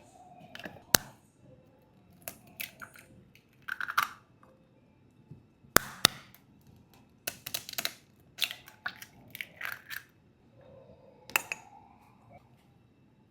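Kitchen handling sounds while preparing pancakes: scattered sharp clicks and knocks of utensils and containers, with short rustling, crunching bursts in between. The sharpest knocks fall about a second in and again near six seconds.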